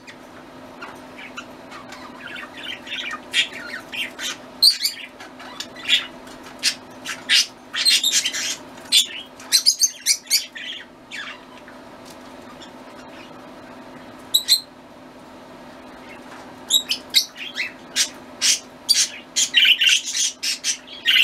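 Budgerigars chirping and chattering in quick bursts of short high calls, with a few quieter seconds in the middle, over a steady low hum.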